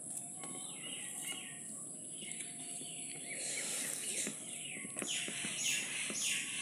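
Birds chirping, a string of short falling calls that grows busier to about three a second in the second half, over faint scattered clicks.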